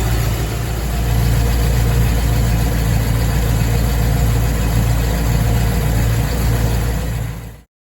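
Land Rover Discovery 2 engine idling steadily, with an even low pulse; the sound cuts off suddenly near the end.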